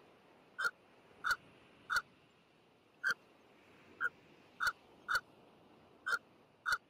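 A series of short, sharp animal calls, about ten of them at uneven intervals of half a second to a second, over a faint steady hiss.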